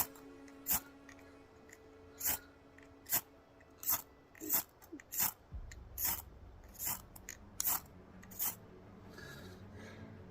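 Ferro rod being struck with a scraper to throw sparks onto tinder: about a dozen short, sharp rasping strikes, roughly one every three-quarters of a second, that stop shortly before the end.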